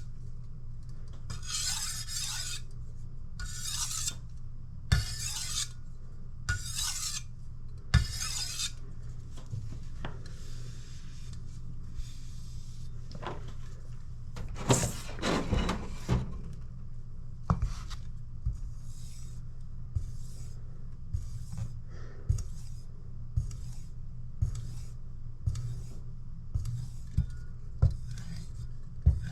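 Steel kitchen knife blade scraping across a sharpening stone in long, even strokes about every one and a half seconds. After a louder scrape midway, the strokes turn shorter, lighter and quicker, a little over one a second. A steady low hum runs underneath.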